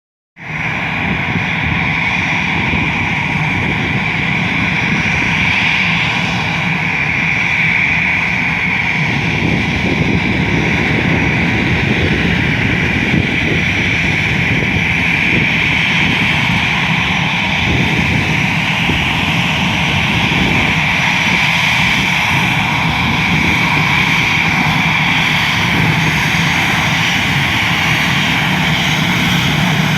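Airbus A320-214 with its CFM56 turbofan engines running: a steady, even noise with a low hum and a higher rushing band that holds unchanged throughout.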